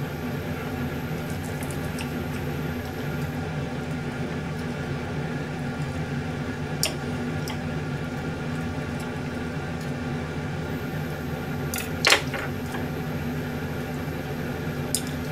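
Steady machine hum in a small kitchen, with a few light clicks of a knife and chopsticks against a ceramic plate as grilled chicken is pushed off its skewers; the sharpest click comes about twelve seconds in.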